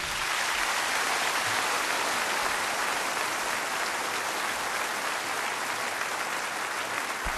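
Large concert audience applauding, a dense, steady clapping right after the music stops.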